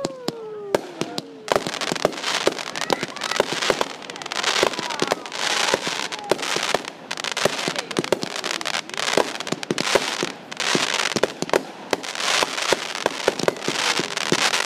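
Consumer aerial fireworks going off in quick succession: launches and shell bursts as sharp bangs, over dense crackling that runs on almost without a break. Over the first second and a half a whistle falls in pitch.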